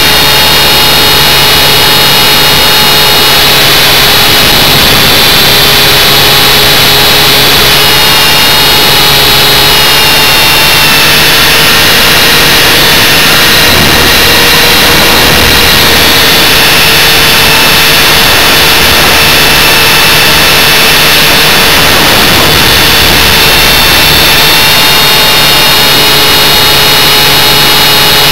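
A loud, steady mechanical drone with several whining tones that waver slightly in pitch, unbroken throughout.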